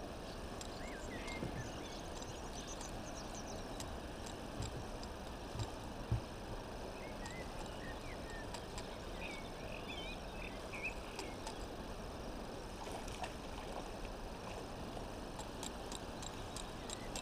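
Outdoor riverbank ambience: a steady background hiss with small birds chirping now and then. A few soft knocks come around the middle, and near the end a spinning reel starts ticking quickly as its handle is turned.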